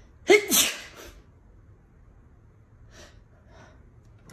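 A single sharp sneeze about half a second in, followed by two faint breathy puffs.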